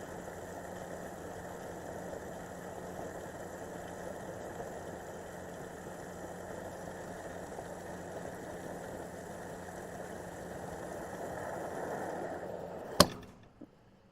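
Gas pump nozzle dispensing fuel into a car's tank: a steady rushing hum of flowing fuel and pump that grows slightly louder as the tank fills. Near the end a sharp click as the nozzle shuts off, and the flow dies away.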